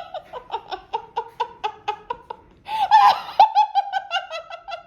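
A person laughing hard in quick repeated bursts, in two fits: the first fades out about two seconds in, the second starts louder just before three seconds and trails off near the end.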